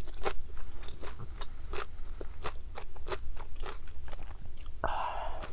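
Close-miked chewing of fish roe such as tobiko, the eggs popping in many sharp, irregular crackles. Near the end there is a brief rushing noise.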